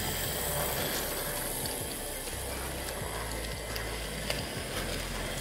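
Hornby 00-gauge model train rolling along metal track: a steady whirring, rattling run of wheels and motor, with a few sharp clicks as wheels cross rail joints, one standing out about four seconds in.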